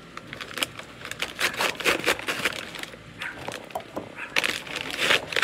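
Plastic and paper packing material crinkling and rustling in irregular handfuls as a shipped plant is unwrapped.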